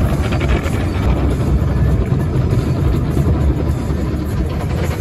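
Automatic car wash's rotating brushes scrubbing and slapping against the car's body and windows, a loud steady rumble heard from inside the car.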